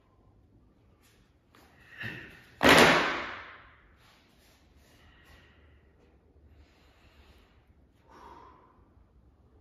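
Large tai chi fans snapped open, a first snap about two seconds in and a louder, sharper one just after, ringing briefly in the room; a softer fan sound comes near the end.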